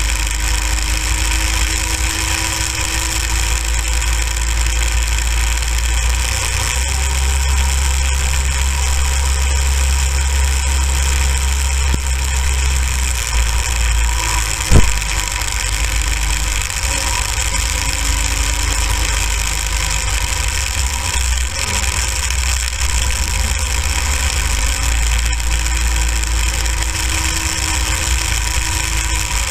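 Small go-kart engine running under way, a steady low rumble. A single sharp knock about fifteen seconds in is the loudest sound.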